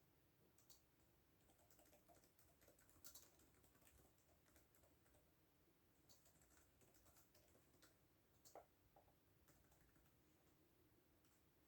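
Faint, irregular typing on a computer keyboard: scattered key clicks with short pauses, and a couple of louder keystrokes about three seconds in and past eight seconds.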